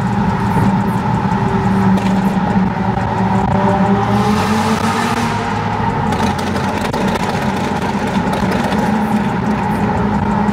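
A car engine droning steadily with road noise while driving at speed, its pitch wavering slightly. A brief rush of noise comes about four seconds in.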